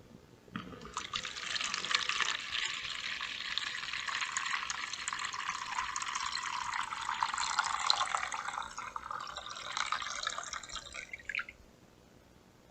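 Water being poured into a bowl, a steady splashing pour that starts about half a second in and stops near the end.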